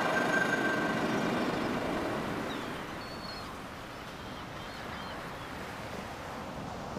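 Music tailing off over the first second or two into a steady rushing background ambience, with a few faint, short high chirps about three seconds in.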